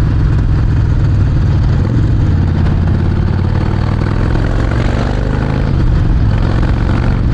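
Harley-Davidson Sportster Forty-Eight's 1200 cc V-twin running through a Vance & Hines exhaust while the bike is ridden, a loud, low, steady exhaust note.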